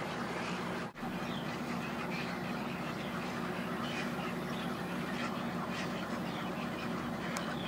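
A large flock of egrets calling as they come in to roost: a dense, continuous clamour of many overlapping calls, broken by a brief dropout about a second in.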